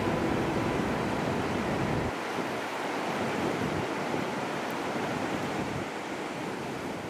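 Ocean surf washing up a sandy beach: a steady hiss of breaking and receding waves that eases slightly toward the end.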